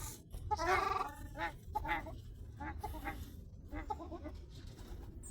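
A duck calling: one long call about half a second in, then a string of short calls over the next few seconds.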